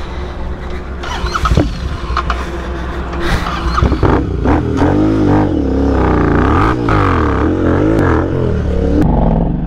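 Motorcycle engine revving hard, its pitch swinging up and down again and again from about four seconds in, after a few sharp knocks in the first seconds.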